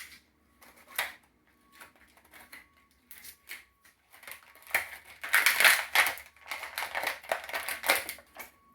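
Plastic action-figure packaging being handled and pulled apart to free the figure: scattered sharp clicks and crackles, then a dense, louder stretch of crackling and crinkling from about five seconds in.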